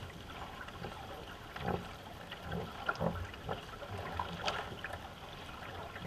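Paddle strokes in a racing canoe: blades catching and pulling through the water with splashes and drips, about one to two strokes a second.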